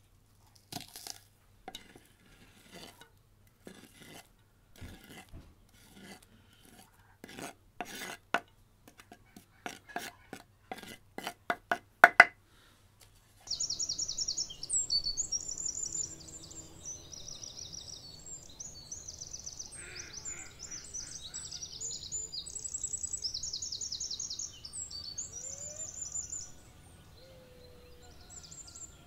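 Kitchen knife chopping onion on a wooden cutting board: irregular knocks that speed up, the loudest strikes about twelve seconds in. Then small birds singing in high, rapid trills over a faint steady outdoor hiss.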